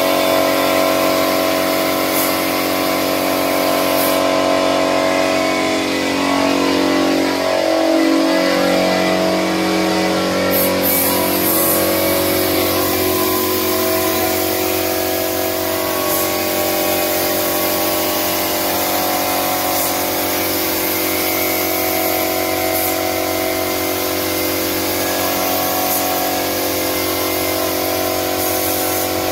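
Air compressor running with a steady hum under the hiss of a gravity-feed spray gun spraying wood polish. The hum's pitch sags and comes back up about eight seconds in.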